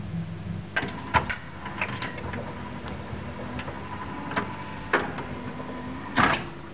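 Irregular mechanical clicks and knocks, a few strong ones among lighter ticks, over a faint steady hum and hiss. A low steady tone stops less than a second in.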